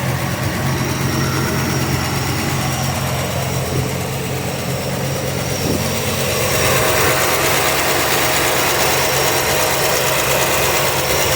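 Chevrolet 305 H.O. L69 small-block V8 idling steadily, with a tick that the owner takes for a lifter tick. It gets a little louder and brighter about halfway through.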